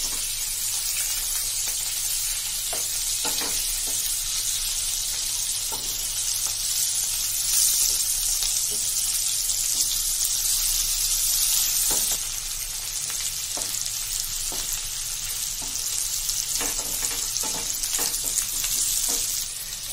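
Stuffed bitter gourd halves sizzling in mustard oil in a kadai, with occasional light clicks of a wooden spatula turning the pieces over. The sizzle is a little louder for a few seconds in the middle.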